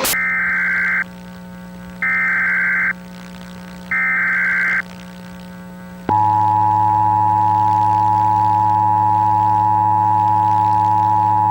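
Emergency Alert System SAME data header: three high warbling data bursts of about a second each, a second apart. About six seconds in, the steady two-tone EAS attention signal begins and holds, over a low steady hum.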